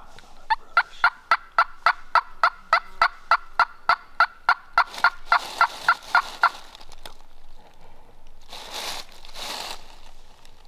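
A long series of wild turkey yelps, about four evenly spaced notes a second for some six seconds, followed near the end by two gobbles from a tom turkey.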